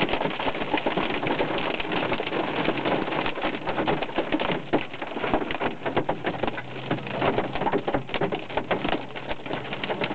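Hailstones hitting a car's roof and windscreen in a dense, irregular clatter, heard from inside the cabin.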